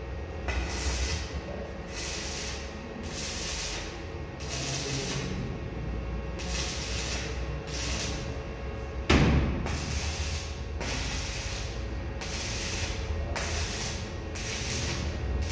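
Electric arc welding on steel tube frames: the arc's crackling hiss comes in short bursts of about a second, starting and stopping, over a steady low hum. There is one loud knock about nine seconds in.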